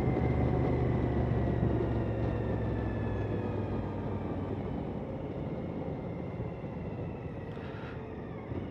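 Motorcycle with an aftermarket Delkevic exhaust riding along, the engine note and level slowly falling, with wind and road noise.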